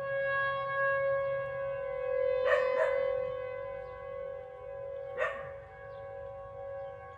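Outdoor tornado warning siren holding a steady tone that gets quieter toward the end, with a dog barking twice over it, about two and a half and five seconds in.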